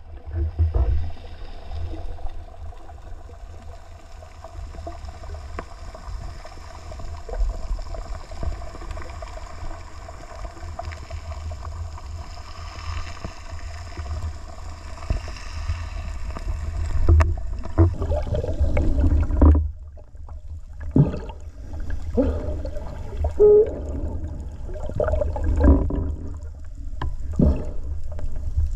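Underwater sound heard through an action camera's waterproof housing: a steady muffled low rumble with a faint even hum above it. In the last third come irregular knocks and surges of water noise against the housing, with a brief lull partway through.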